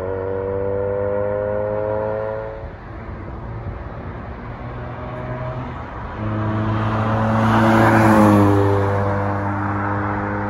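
Mazda RX-8's twin-rotor rotary engine through a 3-inch 316 stainless steel catback exhaust, driving by at cruising throttle. A steady drone rises gently in pitch, eases off, then swells as the car passes about eight seconds in, dropping slightly in pitch as it goes by.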